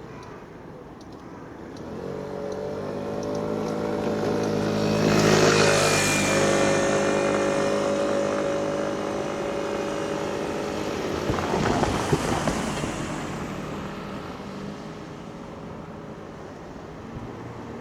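A vehicle passing close by: a steady engine-like drone swells to its loudest about five or six seconds in and holds, then a burst of rattling about twelve seconds in before the sound fades away.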